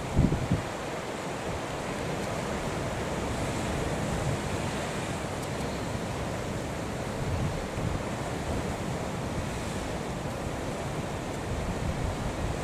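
Wind blowing on the microphone over the steady rush of breaking sea waves, with a couple of low thumps right at the start.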